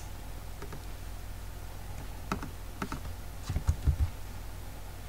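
Computer keyboard typing: scattered keystrokes, a few at a time, with a quicker cluster of heavier strokes about three and a half to four seconds in, over a steady low hum.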